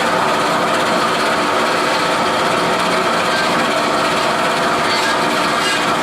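WF Wells F-14 horizontal metal-cutting bandsaw running with its 1-inch blade, sawing through thin steel tubing in a steady feed cut.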